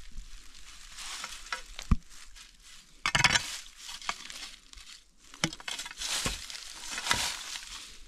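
Footsteps crunching and rustling through dry leaf litter and undergrowth in irregular bursts, with a few sharp snaps; the loudest crunch comes about three seconds in.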